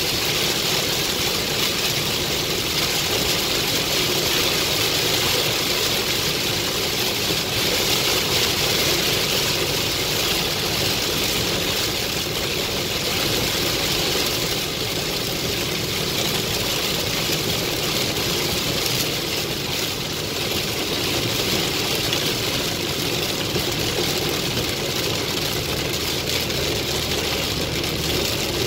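Heavy rain falling on a moving car's windshield and roof, mixed with tyre noise on the wet road, heard from inside the car as a steady hiss over a low rumble.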